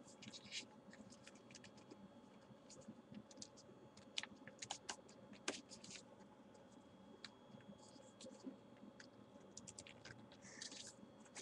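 Faint rustling and soft clicks of printer paper being folded and creased by hand, with irregular small scratches as the paper and fingers move on the desk.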